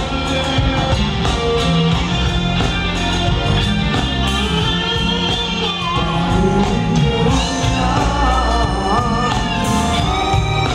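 Live R&B/soul band playing, with electric guitar, bass and keyboards, while a male lead vocalist sings.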